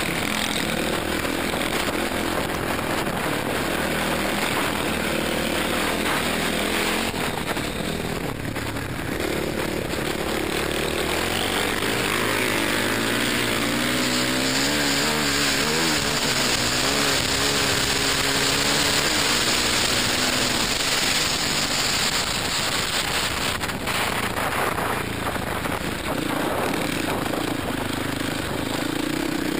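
Dirt bike engine racing hard, heard from the rider's helmet camera, its pitch rising and falling repeatedly as the throttle is worked, over a steady rush of noise.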